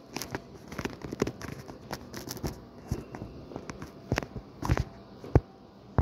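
Irregular taps and knocks, with a few louder thumps near the end, from someone walking on a hard floor while carrying a handheld camera.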